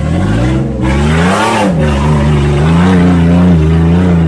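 Off-road 4x4's engine revving hard, its pitch rising to a peak about a second and a half in, then held high and wavering.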